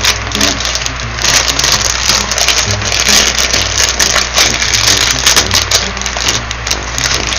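Clear plastic bag crinkling and rustling as it is handled and opened by hand, a dense crackle that picks up about a second in.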